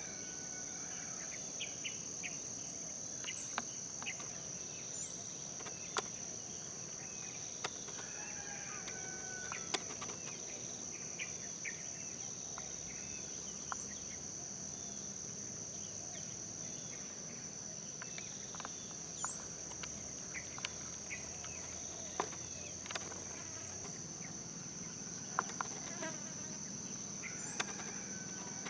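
Steady high-pitched insect trilling, cricket-like, running unbroken, with scattered short chirps and a few faint clicks over it.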